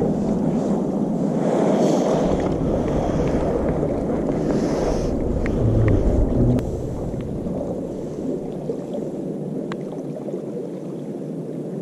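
Sea water washing among breakwater tetrapods: a steady low rushing that eases a little past halfway, with a few faint clicks.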